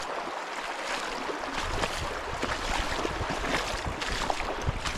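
Legs wading through a river, water sloshing and splashing with each step over the steady rush of the current. A low rumble comes in after about a second and a half.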